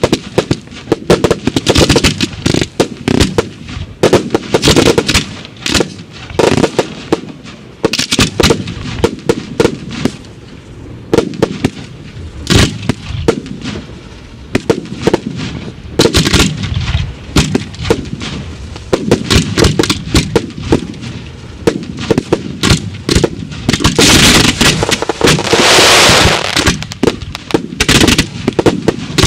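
Fireworks display of mortar-fired shells: many sharp bangs of launches and bursts, often in quick succession, with a loud unbroken rush of sound lasting about three seconds near the end.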